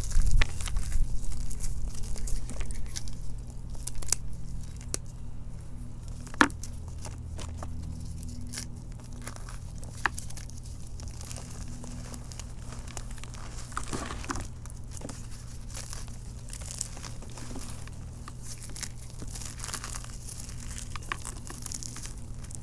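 Hands crumbling chunks of reformed chalk and sifting the powder through the fingers: a run of soft crunches and crackles, busiest in the first few seconds, over a faint steady low hum.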